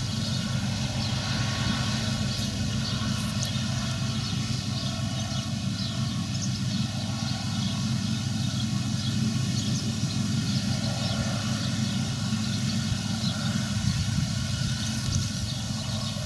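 New Holland combine harvester running steadily while harvesting grain: a constant engine drone together with the threshing machinery.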